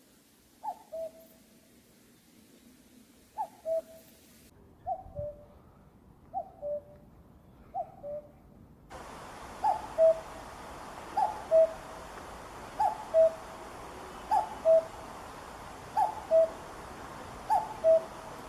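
Common cuckoo calling its two-note "cuck-oo", a higher note followed by a lower one, repeated about every one and a half seconds, eleven times in all. About nine seconds in, it switches to a louder recording of the same call with a steady hiss behind it.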